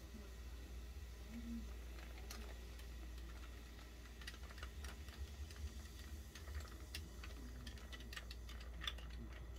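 Long metal bar spoon stirring ice in a tall Collins glass: faint, irregular clinks of ice and spoon against the glass, starting about two seconds in and coming thickest in the second half, over a low steady hum.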